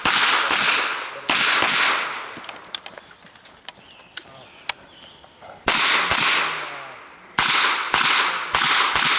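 Revolver shots fired in quick succession, each with a short echoing tail: about three shots in the first two seconds, a pause of about four seconds, then a string of about six shots near the end.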